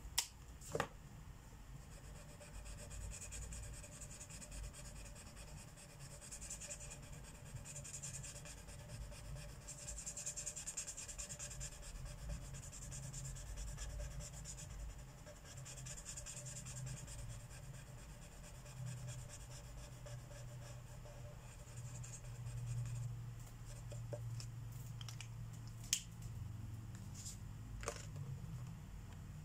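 Marker tips stroking across paper in repeated short scratchy passes over a low steady hum, with two sharp clicks near the start and another about 26 seconds in.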